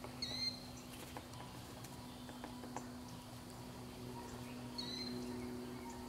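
A small bird calls twice, each a short chirp-like note, the first just after the start and the second about four and a half seconds later, with a few scattered faint taps between them. A steady low hum sits underneath.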